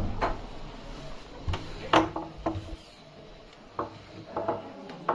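Irregular knocks and clatter, a handful of sharp taps spaced unevenly, the loudest about two seconds in.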